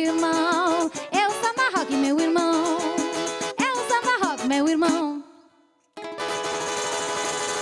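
Live samba band playing, with a melody on a high plucked string instrument over percussion. It fades out about five seconds in. After a second of silence, a different steady sound starts.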